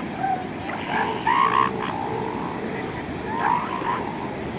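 Northern elephant seals calling: three short, wavering yelps, one at the start, one about a second in and one near the end, over a steady rushing background.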